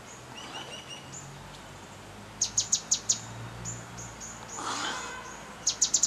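Grey-headed canary-flycatcher calling: a quick series of sharp, high, downward-swept notes about two and a half seconds in, thinner high notes before and after, and another fast run of the sharp notes near the end.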